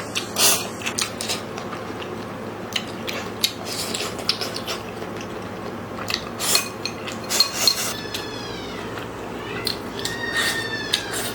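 Utensils clicking and clinking against a dish while someone eats pork blood and intestines, with two high falling squeaks near the end.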